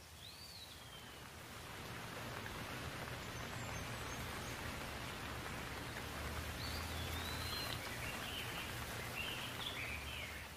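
Steady rain falling, swelling over the first couple of seconds and then holding. Birds chirp over it, once near the start and in a run of calls from about six seconds in that grows busier toward the end.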